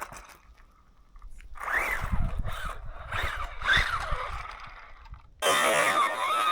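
RC car's motor whining, its pitch rising and falling several times as the throttle is worked, with low thumps underneath. About five seconds in, it jumps suddenly to a louder, steadier whine.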